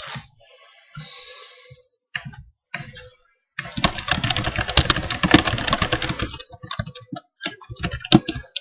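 Typing on a computer keyboard: a fast, steady run of keystrokes lasting about three seconds, with a few scattered single keystrokes before and after it.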